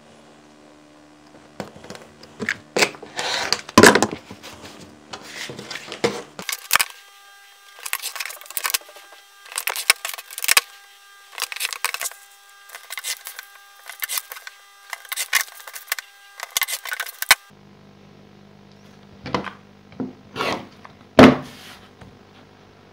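Handwork at a cutting mat: a steel ruler being set down and shifted, and blades drawn through card stock along it, in irregular scrapes and knocks. Card sheets rustle as they are handled.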